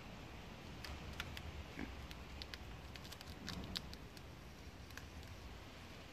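Faint crinkling and scattered sharp ticks of black vinyl wrap film being trimmed and peeled off the edge of a grille, with a cluster of clicks from about two and a half to four seconds in.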